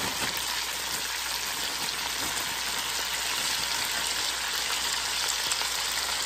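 Onions, celery and carrots sizzling steadily in hot fat in an enameled cast-iron Dutch oven, with faint knocks as baby carrots are tipped in.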